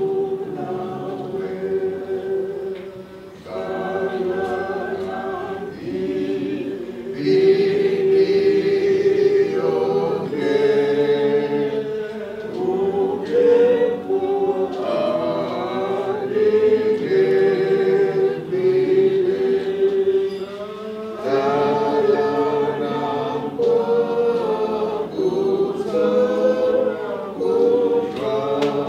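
A group of mourners singing a hymn together, in phrases with long held notes.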